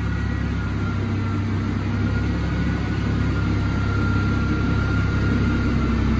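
Tractor engine running steadily, driving a feed mixer wagon as it unloads feed through its side discharge chute, with a faint steady whine above the low hum.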